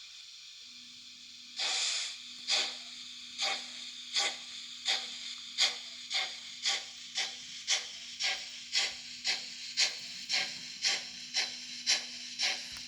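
Märklin H0 BR 94.5 model steam locomotive's digital sound module playing a pulling-away sound: a soft steam hiss, then steam-exhaust chuffs starting about a second and a half in and slowly speeding up to about two a second, over a steady hum.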